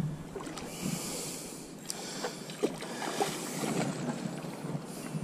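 Light wind and water noise on open water, brightening into a hiss twice, with a few faint ticks.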